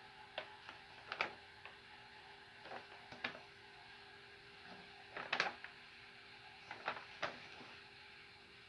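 Faint scattered clicks and knocks at uneven intervals, the strongest about five and a half seconds in, over a steady low hum: handling noise of a stethoscope being moved over a mannequin's chest during lung auscultation.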